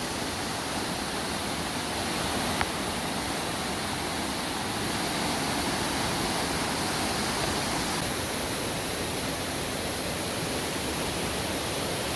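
Steady rushing of water, typical of a waterfall, with one short click about two and a half seconds in.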